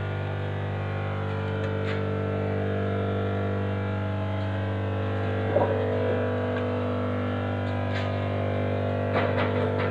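Steady electrical machine hum in a workshop: a low, unchanging drone made of several fixed tones. Faint voices break in briefly about halfway through and near the end.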